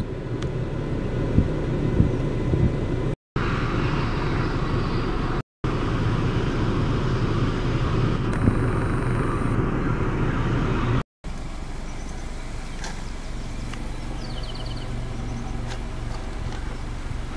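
Steady outdoor rumble and noise, broken by three short cuts. In the last part a Sikorsky S-76D helicopter approaching in the air gives a distant, low, steady hum from its rotor and turbines.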